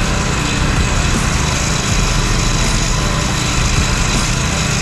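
Small engine running steadily at a constant speed, with no change in pitch.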